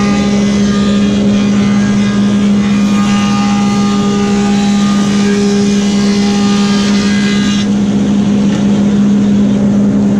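Woodmaster 725 planer with a helical cutterhead running steadily and planing a hardwood board, its cutting noise over the motor hum. The cutting stops about three-quarters of the way through as the board clears the machine, leaving the planer running empty.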